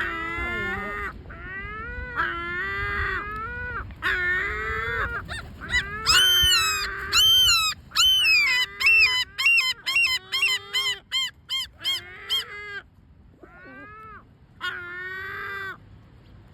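Great black-backed gulls calling: repeated drawn-out, complaining calls, then about six seconds in a loud run of short calls coming faster and faster, which breaks off about thirteen seconds in before a few more calls near the end.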